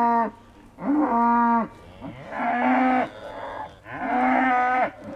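Young cattle mooing one after another: short, fairly high calls of just under a second each, about one a second.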